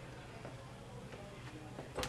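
Faint footsteps on a hard hallway floor, a few soft ticks over a steady low hum.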